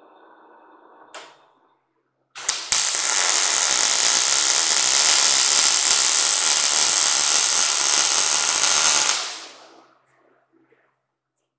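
MIG welding arc crackling steadily for about seven seconds, starting with a couple of short strikes and fading out near the end. Before it, a milling machine runs faintly with its drill, ending in a click.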